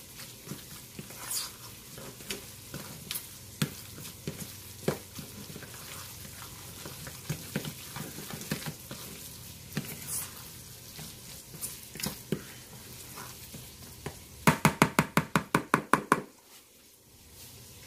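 Spatula stirring and cutting through a thick salmon-croquette mixture in a plastic mixing bowl, with scattered knocks and scrapes. Near the end comes a quick run of about a dozen sharp taps, several a second, lasting under two seconds.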